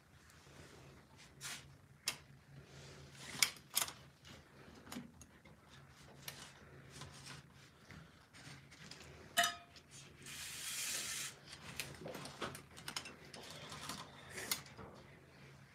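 Handling noise close to a phone's microphone: rustling of fabric with scattered clicks and knocks, the sharpest about three and a half and nine and a half seconds in, and a longer rustle lasting about a second and a half near the ten-second mark. A low steady hum runs underneath.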